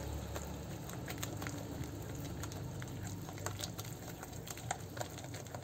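Green silicone-coated hand whisk beating thick cake batter in a glass bowl, with soft, irregular clicks and taps as the whisk strikes the bowl.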